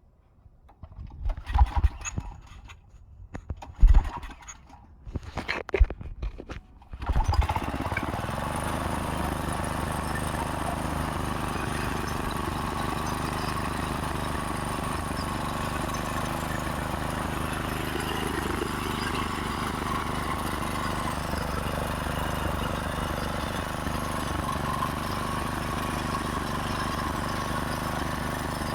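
Go-kart's small gas engine being started: a few short bursts of cranking and sputtering over the first seven seconds, then it catches and runs steadily at idle.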